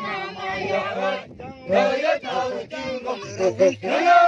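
A group of voices chanting and singing together, with overlapping lines.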